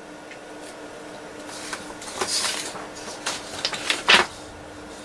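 Handling clatter on an electronics workbench: a short rustle, then a few sharp clicks, the loudest near the end, as the signal generator's test leads are unclipped and the generator is switched off. A faint steady low hum runs underneath.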